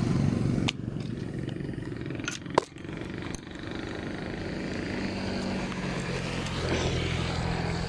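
Low, steady engine hum. It drops away about a second in, then builds back up over the last few seconds, with a few sharp clicks and knocks in between.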